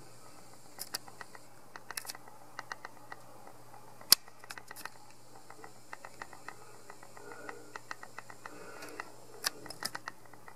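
Camera handling noise while the lens zooms: scattered small clicks and ticks, one sharper click about four seconds in, over a faint high whine of the zoom motor.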